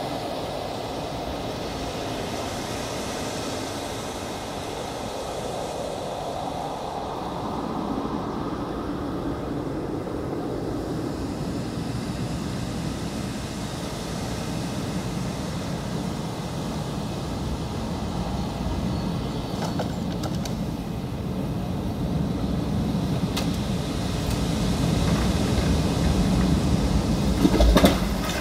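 A low, dense mechanical rumble that slowly grows louder, played back through the installation's outdoor loudspeakers, with sharp knocks starting at the very end.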